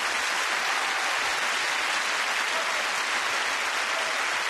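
Concert-hall audience applauding, a steady even clapping with no music.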